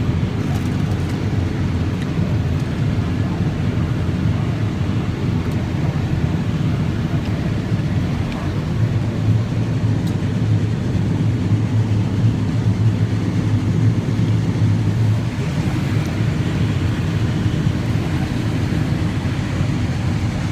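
Combine harvester running steadily, its engine and machinery heard from inside the cab as a constant low drone. A steady low hum grows stronger from about nine seconds in and eases again around fifteen seconds.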